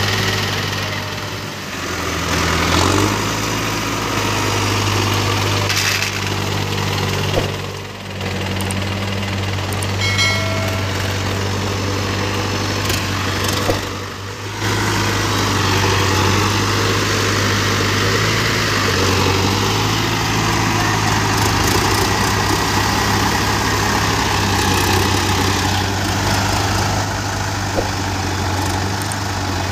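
Tractor diesel engines running hard in deep paddy mud, as a Mahindra Arjun Novo 605 DI drives through and pushes a stuck Indo Farm tractor. The steady engine note breaks off briefly a few times.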